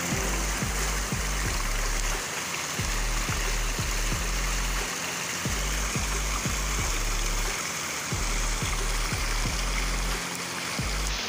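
Background electronic music with a deep sustained bass line and a kick drum about twice a second, over a steady rushing hiss.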